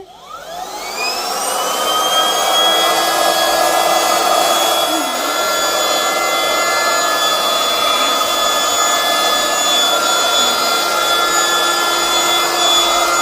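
Electric air pump switched on with a click, spinning up with a rising whine over about two seconds, then running steadily as it blows air into an inflatable dinosaur.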